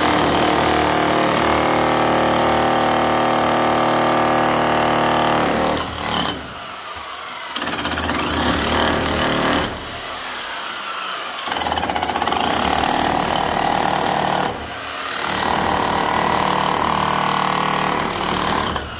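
Electric demolition hammer with a pointed chisel bit hammering into concrete, chipping it away. It runs in four stretches, stopping briefly about six, ten and fifteen seconds in.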